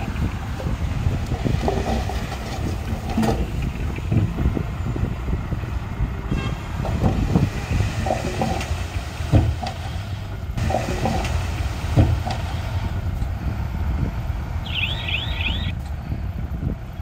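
Diesel engine of heavy earthmoving machinery running, with irregular metallic clanks and knocks. Near the end comes about a second of rapid, high, falling chirps.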